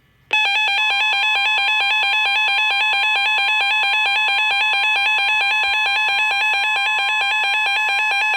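Emergency Alert System attention tone announcing a tornado warning: a loud electronic alert tone that warbles rapidly between pitches, starting just after the beginning, with a steady tone joining it about a second in.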